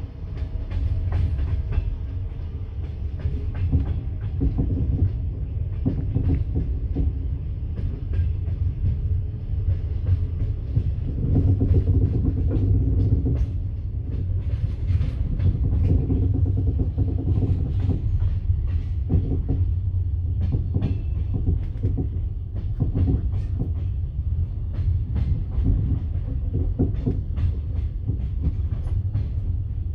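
Railway wagon wheels clattering over rail joints and points, with many irregular clicks over a steady low rumble.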